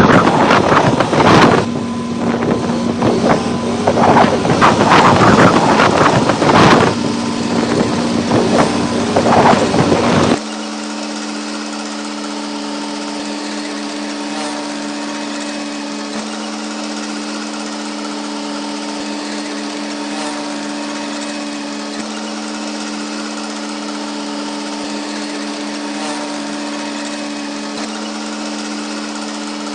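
A motor running with loud, gusty wind noise over it for about ten seconds, then an abrupt cut to a steady, even droning hum.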